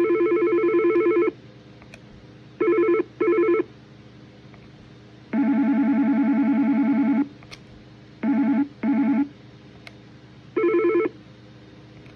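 Yealink IP desk phone ringtones: electronic trilling rings in a cadence. A ring of about two seconds is followed by a quick double ring, then a longer, lower-pitched ring and another double ring, and a single short ring near the end.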